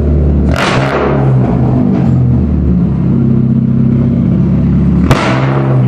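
Loud bass-heavy music: a deep bassline holding flat notes that step from one pitch to the next. A falling hiss sweeps through it about half a second in, and again about five seconds in.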